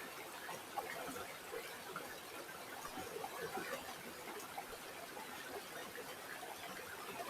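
River water flowing steadily, with many small irregular gurgles and splashes.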